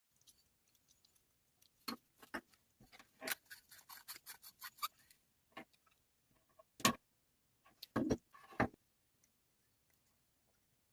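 Clicks and light knocks of small hard objects being handled, including a quick run of evenly spaced ticks about three seconds in and a sharper single click just before the seven-second mark.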